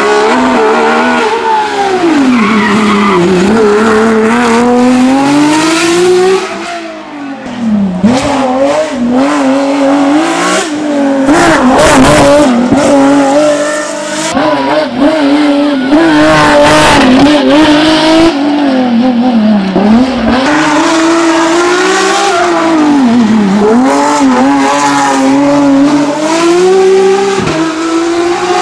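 Racing BMW S38 3.3-litre naturally aspirated inline-six in a Ford Escort Mk2 hillclimb car, revved hard through the gears and backed off into corners, its pitch climbing and dropping over and over.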